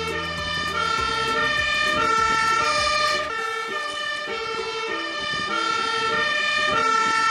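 Fire engine's two-tone siren alternating between a high and a low note, about one high-low cycle a second. This is the hi-lo warning siren of a Magirus aerial-ladder fire engine on emergency run, with the truck's engine rumbling underneath for the first three seconds or so.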